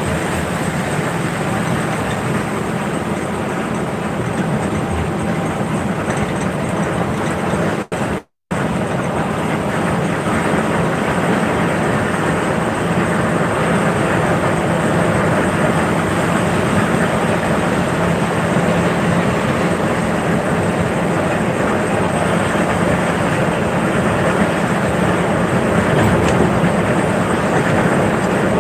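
Steady cabin noise of a coach driving at highway speed in heavy rain: a low engine drone under the hiss of tyres on the wet road and rain on the windscreen. The sound cuts out completely for about half a second around eight seconds in.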